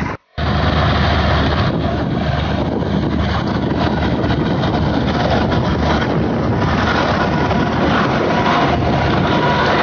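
Claas tractor's diesel engine running steadily under load while its rear-mounted flail mulcher shreds maize stalks, a dense continuous mechanical noise with a faint steady whine in the second half. The sound drops out briefly just after the start.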